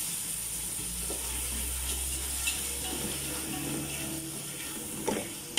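Prawns frying in oil in a steel pot, a steady sizzle while a wooden spatula stirs the just-added masala through them, with an occasional light scrape of the spatula.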